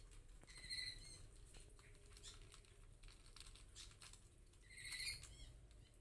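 Faint: a dusky lory giving two short squeaky calls, one about a second in and a longer, wavering one near the end, among light ticks and rustles.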